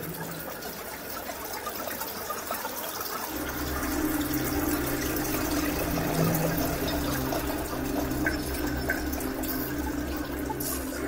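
Running, trickling water with a low steady hum joining about three seconds in.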